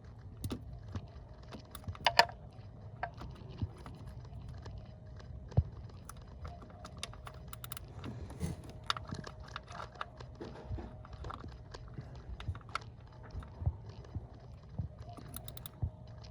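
Irregular clicks and knocks of a ratchet and socket working at a bolt deep in an engine bay, with one sharp clack about two seconds in.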